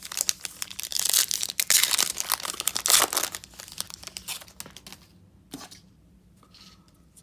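Plastic trading-card pack wrapper being torn open and crinkled, a dense crackling rustle that is loudest in the first three seconds and dies away after about five.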